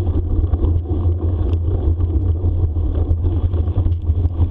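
Steady, heavy wind buffeting on the microphone of a moving bicycle, with tyre and trail rumble from the bike rolling along a forest trail during a bikejoring run.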